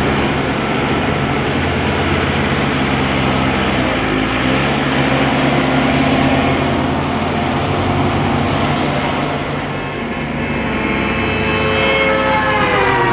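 Excavator running with steady engine and machinery noise. Near the end a whine drops in pitch.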